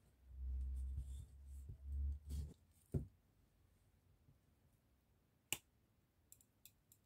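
A kitchen knife is worked through an avocado on a wooden cutting board, giving low dull thumps and rubbing for about two and a half seconds, then a dull knock about three seconds in. A sharp click comes about five and a half seconds in as the blade strikes the avocado pit, followed by a few faint ticks.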